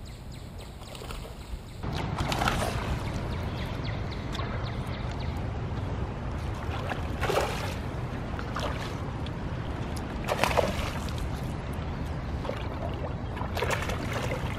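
Boat under way on the river: a steady low rumble that gets louder about two seconds in, with water splashing against the hull several times.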